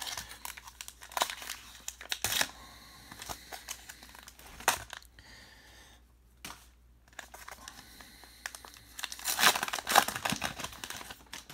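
Baseball card pack wrapper being torn open and crinkled in the hands, in scattered crackles, the loudest stretch near the end.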